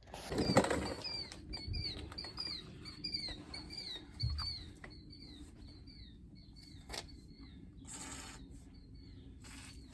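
A small bird chirping over and over, short downward-sliding notes about two or three a second that die out after about eight seconds. A sharp click about seven seconds in, and scattered knocks and rustles.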